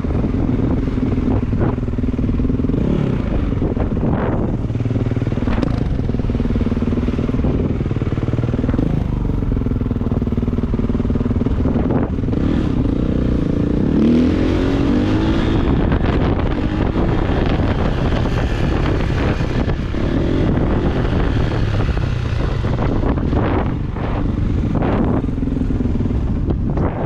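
Kawasaki KX450's single-cylinder four-stroke engine running as the bike is ridden, its pitch rising and falling with the throttle, with a hard rising rev about halfway through.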